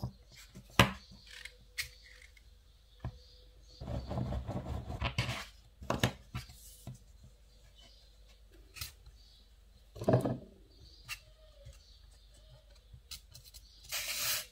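Handling sounds of hands modelling fondant pieces on a plastic work mat: scattered taps and knocks, with a longer stretch of rubbing and rustling about four seconds in and another shortly before the end.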